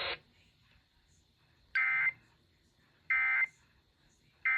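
Emergency Alert System end-of-message (EOM) code: three short, identical bursts of buzzy two-tone digital data, about a second apart. They mark the end of the alert test.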